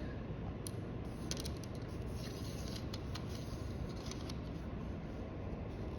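Light clicks and scraping of a plastic lens strip being handled and refitted in a slim aluminium LED light profile, a few faint ticks spread irregularly over a low steady background.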